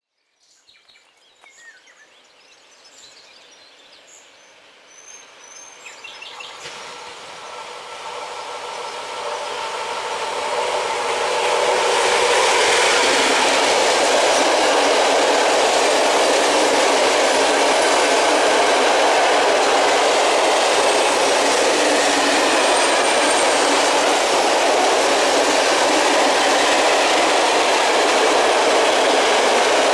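Freight train of open coal wagons hauled by a 311D diesel locomotive approaching and passing. It grows steadily louder over about the first twelve seconds, then the wagons roll past with a loud, steady rush of wheel and rail noise.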